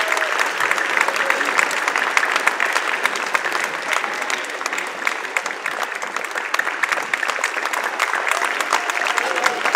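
Audience applauding steadily: many hands clapping at once, with a few faint voices mixed in.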